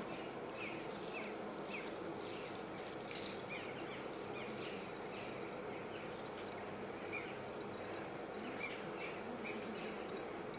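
Pot of meat stock at a rolling boil, bubbling steadily with small recurring pops. Soaked basmati rice is pushed in from a glass bowl, adding scattered soft patters as it drops into the liquid.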